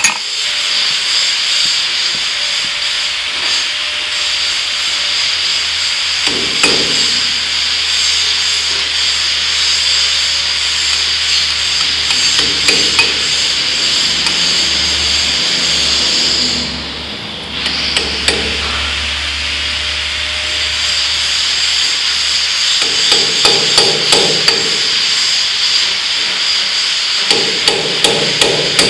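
Hand hammer striking the steel pin of a loader bucket's roll-out cylinder: scattered metal-on-metal blows, then quicker runs of taps toward the end. A steady loud hiss runs underneath, dropping out briefly partway through.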